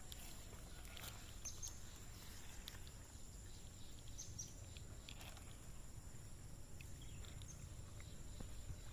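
Faint outdoor ambience: a steady high-pitched insect drone with scattered short high chirps over a low rumble.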